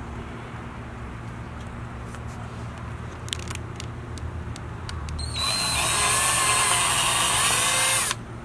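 Cordless drill boring a pilot hole into a round wooden board: the motor whines loudly for about three seconds, starting about five seconds in, and stops abruptly. Before it, a few light clicks over a low background rumble.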